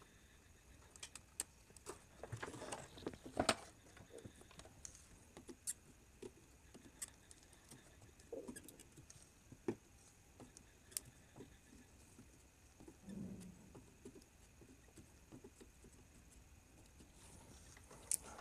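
Faint, scattered clicks, taps and rustles of a printed circuit board and its parts being handled by hand while a replacement inductor coil is fitted to a CRT TV's power-supply board.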